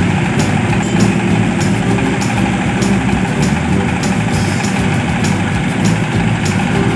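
An engine running steadily at an even speed, with a light ticking or rattle about twice a second.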